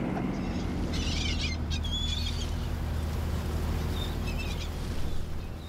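Gulls calling a few times, short high cries, over the steady low drone of a shrimp boat's engine.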